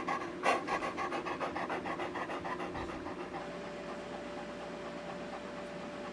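Heavily pregnant Labrador retriever panting in quick, even breaths that fade out about halfway through; heavy panting that the owner reads as a sign she is close to going into labor.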